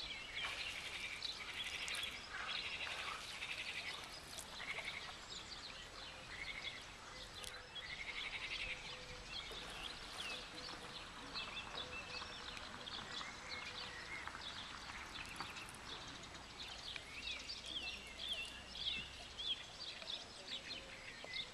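Frogs and birds calling from the reed-lined pond: a busy, continuous mix of short pulsed croaks and chirps, with a faint steady hum underneath.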